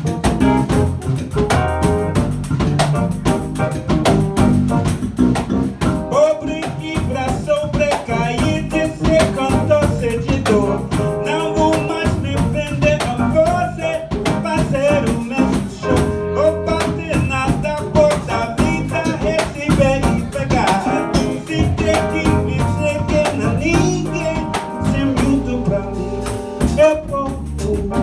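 Instrumental intro of a Brazilian song played live by a small combo: piano, bass, and pandeiro with drum keeping a steady groove.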